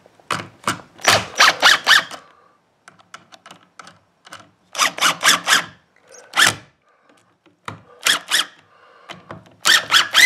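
Hitachi cordless driver running screws into the mounting ears of an electrical outlet in a plastic box, in about five short spurts, each a quick run of sharp clicks.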